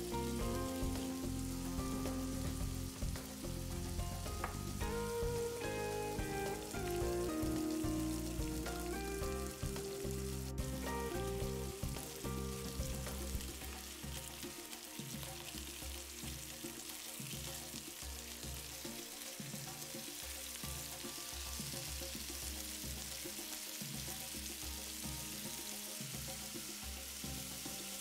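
Chicken breast strips sizzling as they fry in oil in a pan, the sizzle growing stronger in the second half, under background music.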